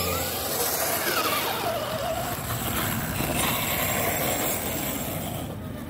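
Radio-controlled scale crawler's electric motor and gearbox whining as it climbs a dirt trail. The pitch rises and falls as the throttle is worked.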